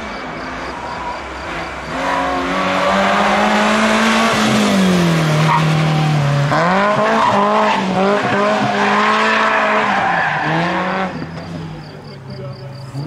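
BMW E30 318iS's 1.8-litre four-cylinder engine revving hard as the car slides through a hairpin, with tyre squeal. The revs sag for about two seconds mid-slide, then jump and climb again as it accelerates away, fading near the end.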